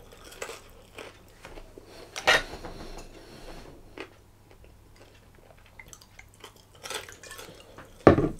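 Ale poured from a bottle into a stemmed beer glass, amid light clinks and knocks of glass and tableware; a louder sharp knock comes near the end.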